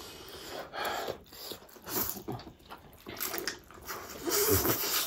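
Close-miked wet slurping and chewing of spicy fried noodles, in short irregular bursts.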